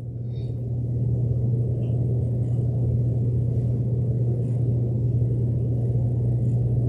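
A steady low drone that fades in over the first second and then holds unchanged.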